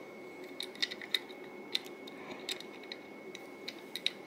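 Small steel parts of a Marswell Model 1914 pump-action shotgun's action clicking and tapping as they are fitted together by hand: a dozen or so light, irregular metal clicks.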